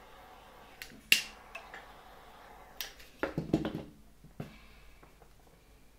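A handful of sharp clicks and light knocks from small parts and tools being handled on the workbench. The loudest click comes about a second in, and there is a short burst of clatter around three and a half seconds.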